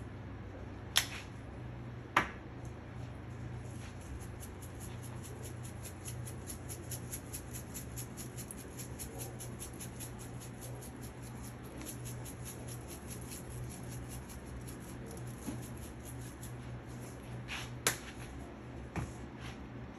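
Spice shaker jar shaken in quick even strokes, several a second, its contents rattling out. A few sharp clicks near the start and near the end. A steady low hum underneath.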